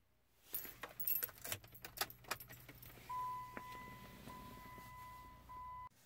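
A bunch of keys jangling and clinking for a couple of seconds, then a steady electronic beep on one pitch lasting nearly three seconds, broken twice by short gaps.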